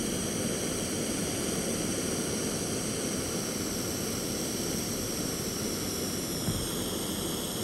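Small gas torch burning with a steady hiss.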